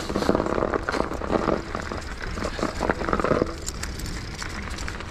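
Mountain bike's soft, low-pressure plus tyres rolling over a snow-covered dirt trail, giving a run of irregular crunching crackles over a low steady rumble.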